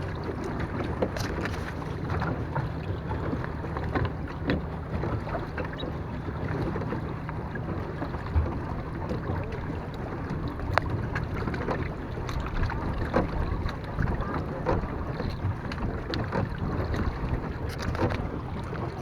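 Small boat under way: water sloshing and lapping against the hull, wind rushing over the microphone, and scattered small knocks and clicks.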